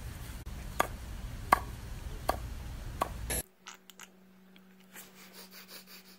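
Four sharp plastic taps, about one every three-quarters of a second, from a child's plastic toy golf club hitting a golf ball, over a steady outdoor background rumble. About halfway through the sound cuts off to a quiet room with only faint small clicks.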